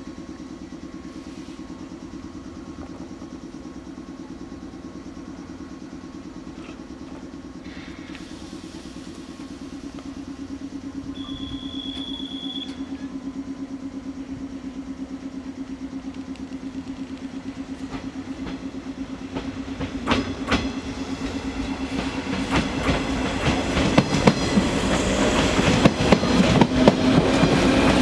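JR West 415 series 800 electric multiple units at a station: a steady low hum from a train standing at the platform, with a short high tone about eleven seconds in. From about twenty seconds in, a train approaches and gets steadily louder, its wheels clicking and clacking over the rail joints.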